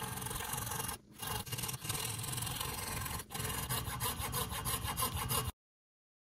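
Thin-bladed hand saw cutting through the wooden axe handle and wedge where they stick out of the axe eye: a steady rasping back-and-forth, with brief pauses about a second in and just past three seconds. The sound cuts off abruptly about five and a half seconds in.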